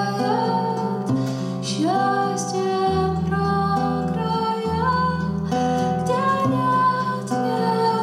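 A woman singing a Russian bard song (author's song) to her own acoustic guitar. The guitar plays steady bass notes under the melody, and her voice slides up into several of the notes.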